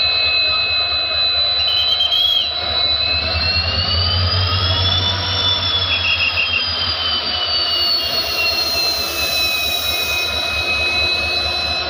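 Diesel locomotive running with a loud, steady high turbocharger whine over a low engine rumble. The whine rises gently in pitch about halfway through and eases back down near the end. Two short chirps are heard briefly.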